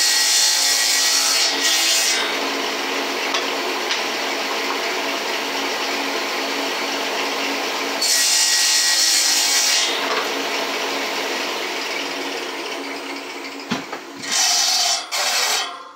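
Shopsmith table saw running steadily, its blade crosscutting a wood board into squares three times; each cut is a louder, higher-pitched stretch of sawing lasting one to two seconds.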